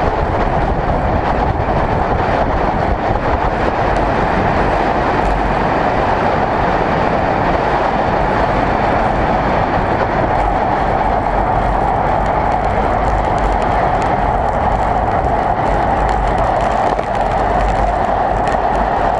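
Steady rush of wind over the microphone mixed with tyre and road rumble from a bicycle descending a road at speed.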